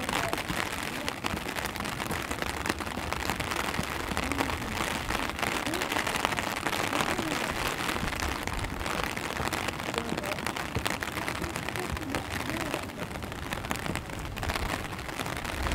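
Steady rain falling, with many close drop ticks pattering on an umbrella overhead over an even hiss of rain.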